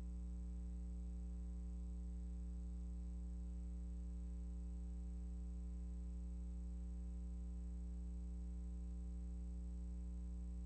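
Steady low electrical hum with a thin high-pitched whine above it, unchanging throughout; no other sound.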